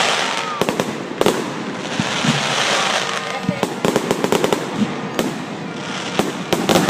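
Aerial fireworks going off: an irregular run of sharp bangs and crackling reports, several a second at times, over a steady hissing wash.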